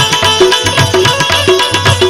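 Live Gujarati bhajan accompaniment in an instrumental break between verses: a fast hand-drum rhythm over steady held notes from a melody instrument.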